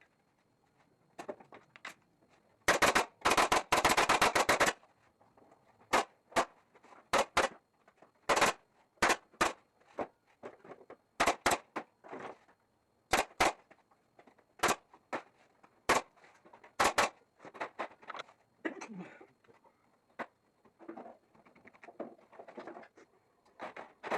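Staple gun firing staples to fasten wire mesh onto a wooden frame: a quick string of shots, then single shots about a second apart, with fainter handling noise between them.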